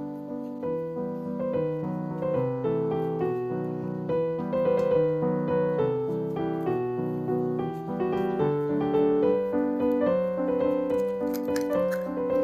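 Background piano music: a gentle melody of steady, evenly paced notes.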